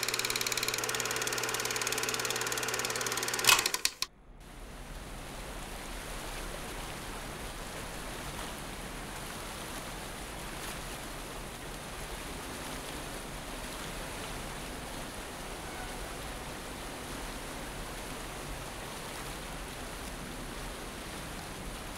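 A loud logo sting of sustained tones over hiss, with a sharp hit near the end, cuts off suddenly about four seconds in. It gives way to a steady rushing noise with a low rumble: river water and wind.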